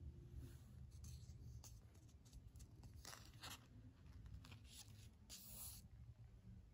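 Soft rustling and crinkling of an old, heavily worn comic book's paper page being turned. The strongest rustle comes about three seconds in and another about five and a half seconds in.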